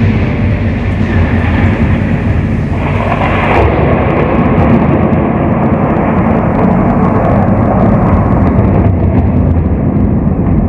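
Loud, steady rumbling noise played through the sound system, with no clear pitch, growing brighter for a moment about three seconds in.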